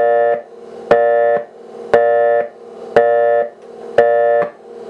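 Fast busy (all-circuits-busy) signal from an Electric Specialties Company telephone central-office tone generator and interrupter. A buzzy, organ-like tone is switched on and off about once a second, five times, and each burst begins with a sharp click. A faint hum stays on between bursts.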